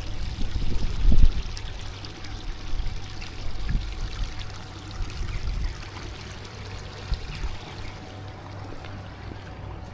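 A small waterfall splashing and running steadily, with low rumbles of wind on the microphone that are loudest about a second in and ease off over the second half.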